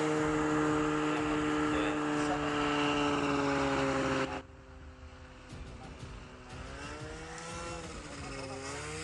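Single-engine propeller light aircraft on landing approach, its engine droning steadily with the pitch sinking slightly. The sound drops off abruptly about four seconds in, leaving a quieter tone whose pitch wavers up and down near the end.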